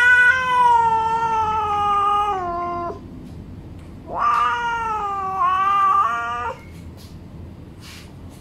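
Cat meowing: two long, drawn-out meows, the first about three seconds long and sliding slowly down in pitch, the second about four seconds in and a little shorter.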